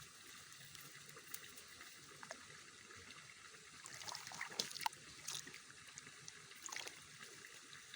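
Faint trickling and dribbling of muddy rice-paddy water, with scattered small clicks and light splashes, more of them in the second half.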